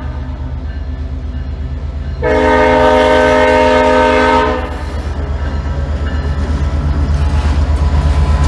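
EMD GP49 diesel-electric locomotive blowing its horn in one long blast about two seconds in, held for a couple of seconds as it reaches a road crossing: the last long blast of the grade-crossing horn signal. Under the horn its diesel engine runs with a steady low rumble that grows louder as the locomotive passes close by in the second half.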